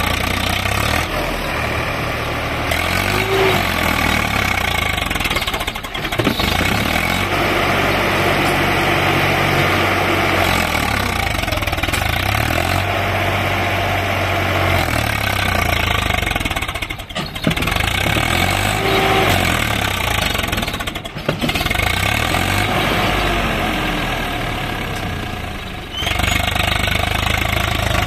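Swaraj 744 XT tractor's three-cylinder diesel engine running under load while pulling a loaded trolley over rough ground. Its revs rise and fall, dipping briefly several times.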